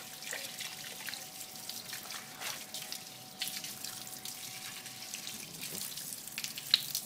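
A water jet from a hose spatters and splashes on a motorcycle's front wheel and brake disc: a steady hiss of water broken by irregular louder splashes, with one sharp splat near the end. A faint steady tone runs underneath and stops about five seconds in.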